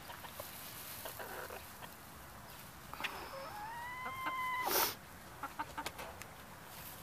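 Chickens feeding, with one drawn-out hen call a little past halfway that rises slightly and then holds. A brief rush of noise follows, then a few light taps as beaks peck at wet bread in a pan.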